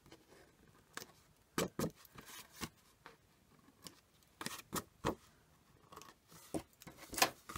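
Small scissors snipping at the edge of a machine-embroidered fabric panel on a card: scattered short, sharp snips, some in quick pairs, with pauses between.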